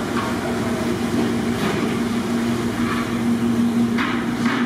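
A steady mechanical drone with a constant low hum, with two brief knocks near the end.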